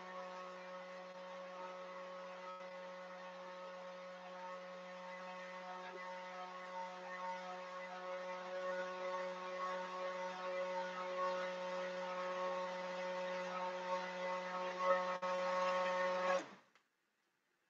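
Electric stick blender running steadily with a motor hum while it mixes cold process soap batter, growing a little louder before it is switched off about a second before the end.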